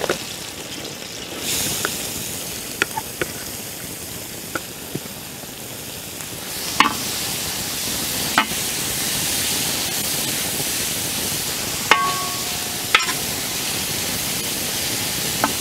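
Sliced onions dropped into hot oil in a large aluminium pan and sizzling. The frying hiss starts about a second and a half in and grows louder from about six seconds. A few sharp clicks and scrapes come from a metal spoon stirring them against the pan.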